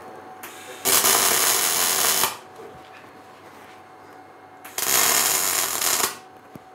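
Arc welding on steel sheet, fixing the exhaust-pipe connector collar to the smoker's cooking chamber: two bursts of welding crackle, each about a second and a half long, with a pause of a few seconds between them.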